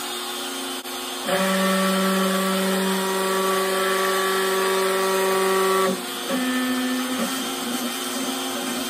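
Compact router running at speed as a CNC spindle, its 1/16-inch upcut bit carving a pocket in plywood. It is a steady whine that grows louder about a second in and shifts to a slightly quieter, different pitch about six seconds in as the cut changes.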